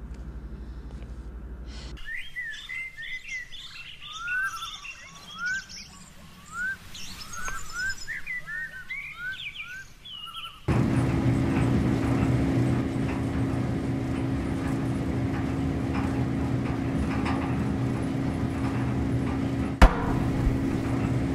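Birds chirping, a run of short rising calls, for about eight seconds. The birds then cut off abruptly and a louder steady hum begins, with one sharp click near the end; this hum is most likely a laundry machine running.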